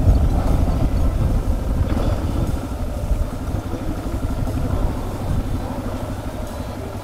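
Suzuki DR650's single-cylinder engine running at low speed, gradually getting quieter.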